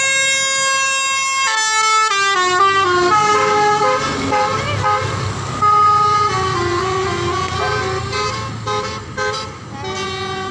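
Telolet horn, a multi-trumpet bus air horn, holding a chord for about a second and a half, then playing a tune of quick stepping notes, with a low rumble underneath.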